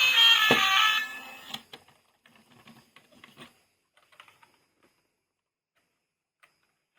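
A melody plays and stops about a second in. Faint, scattered light clicks and taps follow for a few seconds, then near silence.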